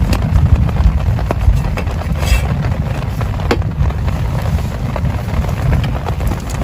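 Heavy rain, a steady low rumble with scattered sharp taps of drops striking close by.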